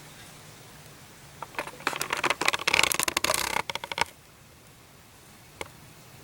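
A clattering, rustling handling noise lasting about two and a half seconds, with a single click later: oil bottles and a measuring container being handled while new engine oil is measured out.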